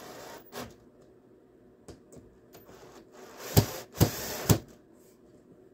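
Cordless drill driving screws through an aluminium strip into wood. The drill runs briefly at the start and again for about a second and a half past the middle, with three sharp clicks during that second run.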